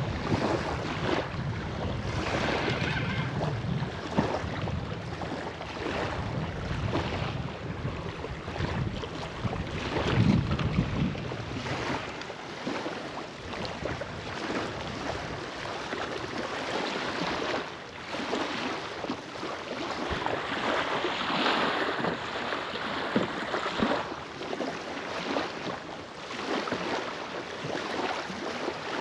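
Wind buffeting the microphone, with a low rumble for about the first twelve seconds, over water lapping at the shore.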